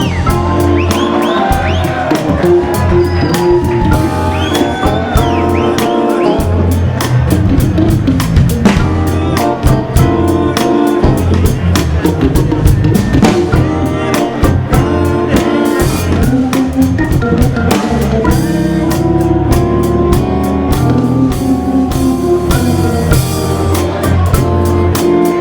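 Hammond organ playing held chords and quick runs over a drum kit and a steady bass line: a live soul-jazz band.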